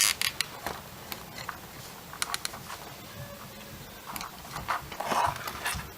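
Nylon zip tie being threaded and pulled snug around an ESC: a few sharp plastic clicks, then a short rasping pull about five seconds in.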